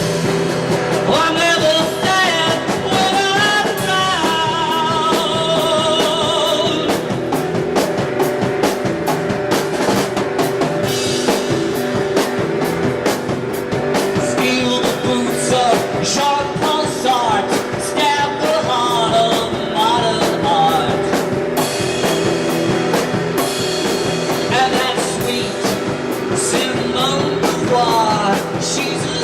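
Rock band playing a song, with a drum kit keeping a steady beat and a singer whose vocal lines come in about a second in, again from about the middle, and once more near the end.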